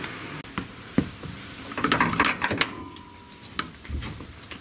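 Scattered clicks, knocks and light clinks of hand tools and parts being handled during car suspension work, with a brief cluster of knocks in the middle.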